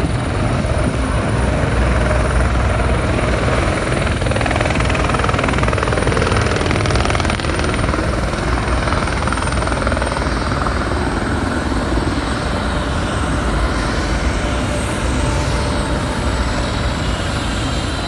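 Helicopter on the ground just after landing, its rotor beating steadily, with a thin high whine that slowly falls in pitch.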